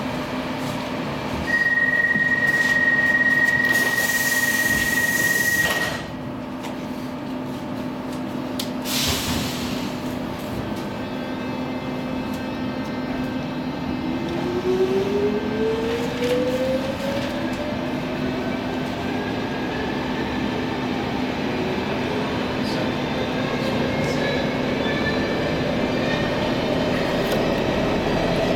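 Inside a Stockholm Metro C14 car: a loud steady warning tone for about four seconds before the doors close, and a short hiss a few seconds later. Then, about halfway in, the motors whine upward in pitch as the train pulls out and gathers speed, over a steady low hum.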